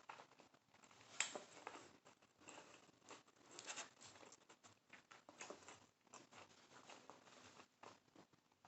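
Faint chewing and mouth sounds of someone eating birria tacos: soft irregular wet clicks and smacks, with one sharper click about a second in.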